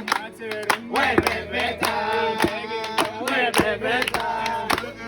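A group of voices singing a chant together, with sharp knocks keeping a steady beat.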